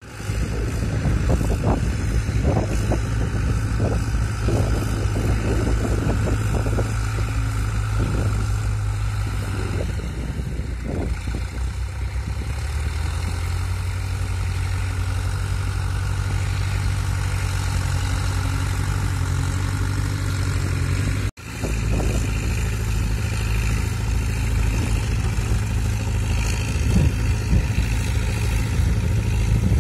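Zetor Crystal 8011 tractors' diesel engines running steadily while working a field, one pulling a mounted plough. Irregular knocks sound over the first dozen seconds, and the sound cuts out for an instant about two-thirds of the way through.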